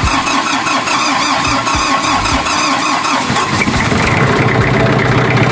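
Reconditioned Isuzu four-cylinder diesel engine of a Denyo generator set cranking on its electric starter, with a steady starter whine and rhythmic compression pulses, then catching about three and a half seconds in and settling into a steady idle.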